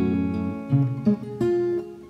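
Music led by acoustic guitar, chords strummed and changing about every half second.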